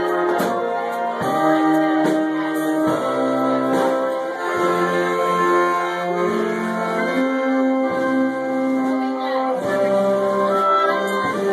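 Live German Blasmusik band playing a tune: clarinets and trumpets carry the melody over tuba and accordion, with held notes moving from one pitch to the next.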